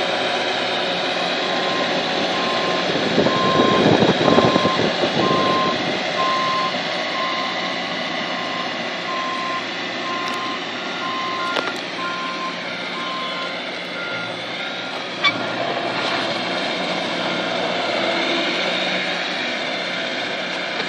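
Skid steer engine running steadily with a backup alarm beeping at an even pace, about once a second, while the machine reverses. The engine surges louder for a few seconds early on. Partway through, a second, higher-pitched beeping overlaps and carries on after the first stops.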